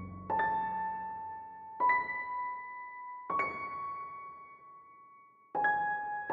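Slow background piano music: four single notes struck about one and a half seconds apart, each ringing and slowly fading.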